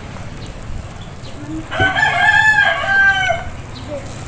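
A rooster crowing once, one drawn-out crow of about a second and a half in the middle, over a low hum of street traffic.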